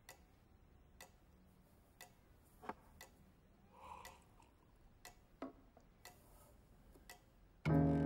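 Cat-shaped pendulum wall clock ticking about once a second, with a few small clinks and a soft sip from a teacup in between. Near the end, piano keys are suddenly struck in a loud low cluster as a cat steps across the keyboard.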